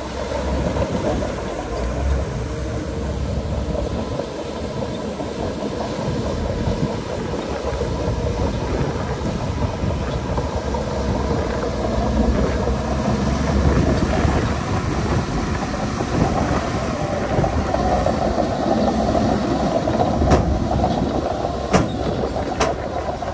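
Shantui DH17C2 bulldozer at work: its diesel engine running steadily with a continuous mechanical rattle, and a few sharp knocks near the end.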